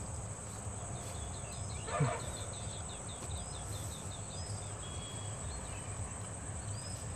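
Open-field ambience: a steady, high insect drone, with a bird calling in a run of short chirps. About two seconds in comes one brief, louder low sound.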